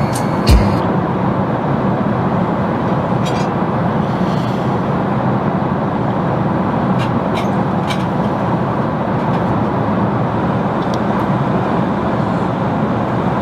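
Steady cabin noise of an Airbus A380 airliner in cruise: an even roar of airflow and engines, with a few faint light clicks.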